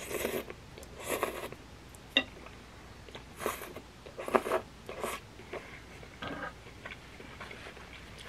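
Close-up slurping of sauce-coated black bean noodles (jajangmyeon), about five short wet sucking slurps over the first five seconds, then quieter chewing.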